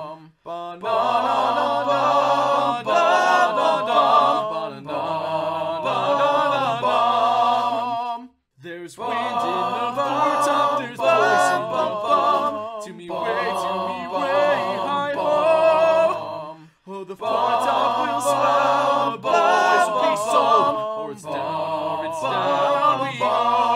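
Multitracked a cappella singing: several layered vocal harmony parts, all sung by one singer, in phrases of a few seconds each. Two brief breaks fall about 8 and 17 seconds in.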